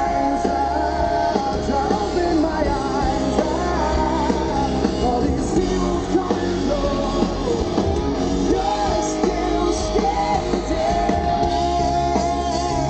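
Live rock music: a male lead singer singing into a microphone over electric guitar and a band, recorded from the audience.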